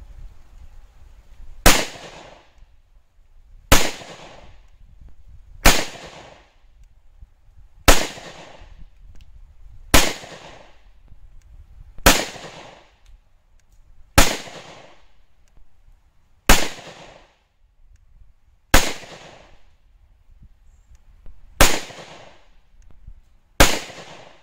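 Ruger-57 5.7x28mm pistol firing eleven single shots, evenly paced about two seconds apart, each with a short ringing tail: slow, deliberate fire over a chronograph for velocity readings.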